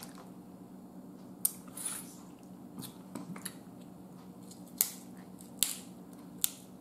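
Snow crab legs being snapped and cracked open by hand: a string of sharp shell cracks, the three loudest in the second half, over a steady low hum.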